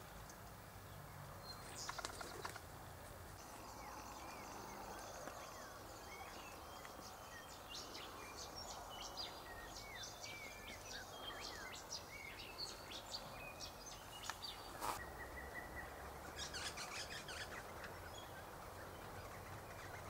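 Faint birdsong: many short, high chirps and twitters, thickest in the middle, over a steady background hiss, with one sharp click about fifteen seconds in.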